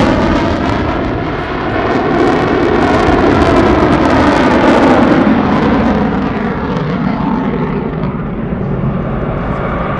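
F-22 Raptor's twin Pratt & Whitney F119 turbofans running in afterburner as the jet climbs away: a loud, deep rumbling rush of jet noise with a slow sweeping, phasing quality. It grows duller toward the end as the jet draws off.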